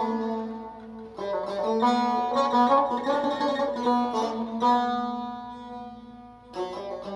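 Persian tar, a long-necked plucked lute, playing phrases of quick plucked notes over a held low note. The playing dips briefly a little past six seconds before a new phrase starts.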